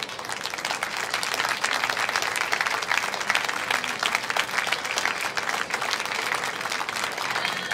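Audience applauding, many hands clapping together. The clapping builds over the first second or so and then holds steady.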